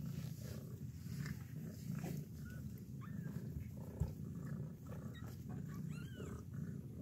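Newborn kittens making several short, high mews while nursing, over a steady low purr from the mother cat. There is one soft bump about four seconds in.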